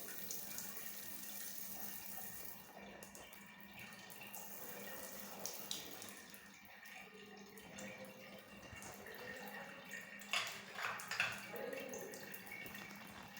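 Water running from a tap in a steady flow, with a few sharp knocks near the end.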